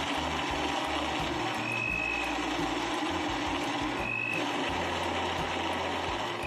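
Countertop blender running steadily, its blades churning frozen strawberries, raspberries, blueberries and ice into a thick berry smoothie.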